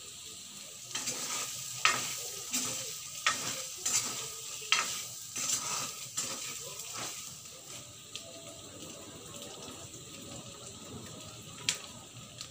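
Chicken pieces sizzling in a metal wok while a spatula stirs them, knocking and scraping against the pan in a run of sharp strokes from about one to seven seconds in. After that the steady sizzle carries on, with a single sharp click near the end.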